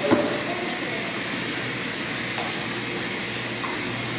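Steady blowing machine noise with a low hum, with one short knock just after the start.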